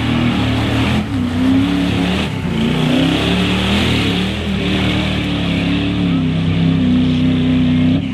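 Chevy mud-bog truck's engine revving hard, its pitch rising and falling over and over as the oversized tires spin and churn through deep mud.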